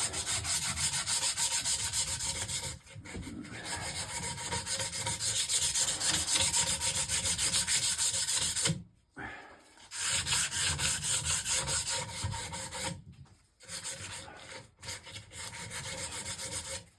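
Sandpaper rubbing steadily on an old solid-wood table part, taking off the old varnish, with a few short pauses between stretches of sanding.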